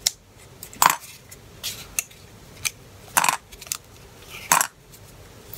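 Small metal binder clips being pried open and pulled off a glued fabric piece, then set down: a series of sharp, irregularly spaced metallic clicks and clinks, about half a dozen, the loudest about a second in, past three seconds and near the end.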